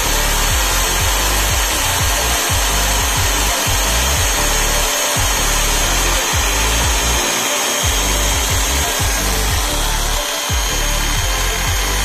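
Power drill driving a toy combine harvester's grain-unloading auger, running steadily as wheat pours out of the pipe.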